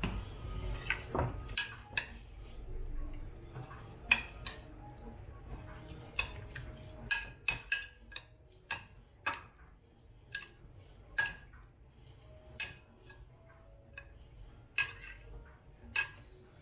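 Metal spoon stirring salmon poke in a ceramic bowl, clinking sharply and irregularly against the bowl's sides.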